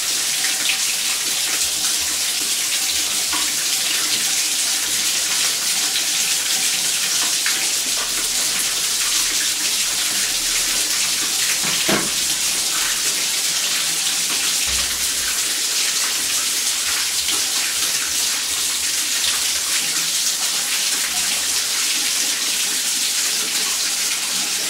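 Water gushing steadily out of the open wall supply pipe of a toilet flush valve and splashing onto the toilet, with the valve removed and the line open. A single knock comes about halfway through.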